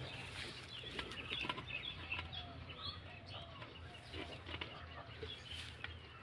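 Faint bird calls: chickens clucking, with short high chirps scattered through, busiest in the first few seconds.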